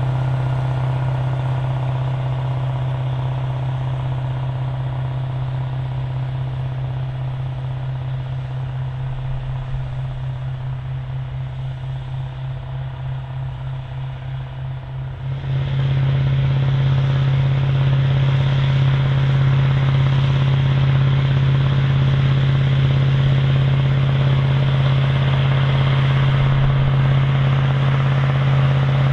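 Big articulated farm tractor's diesel engine running at a steady pitch. The drone slowly fades for the first half, then about halfway through suddenly grows louder and brighter.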